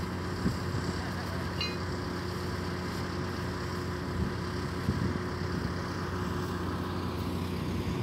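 Steady drone of a heavy machine's engine running, with a couple of short knocks.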